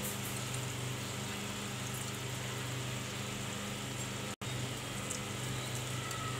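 Steady low mechanical hum with a hiss over it, cut off for an instant about four seconds in.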